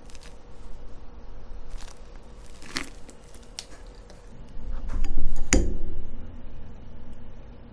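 Thick marshmallow mixture being squeezed from a piping bag into a plastic ice-tray mold, with soft squishes and light clicks. A little past halfway comes louder handling of a glass bowl of thick red sugar syrup with a metal spoon: a low thud and one sharp clink.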